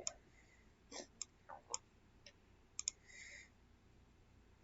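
Faint, scattered clicking of a computer mouse, about eight short clicks at irregular intervals.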